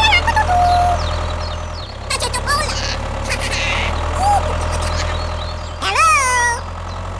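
Steady low engine drone of a miniature tractor, with several short squeaky, voice-like calls over it; the clearest call rises and falls in pitch about six seconds in.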